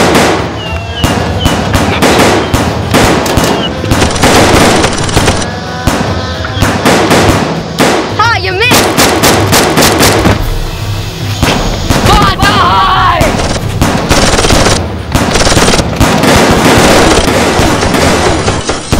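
Rapid bursts of gunfire sound effects, shot after shot in quick succession, laid over a staged Nerf blaster battle, with background music.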